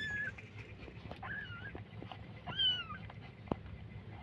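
Newborn kitten mewing three times: short, high-pitched cries that waver in pitch, the third the loudest. A single sharp click comes a little after the third cry.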